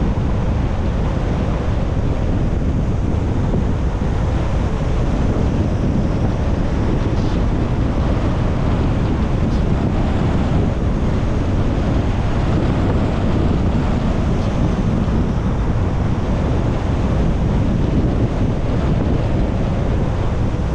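Steady road and wind noise of a car being driven, an even rush heaviest in the low end, with no change in level.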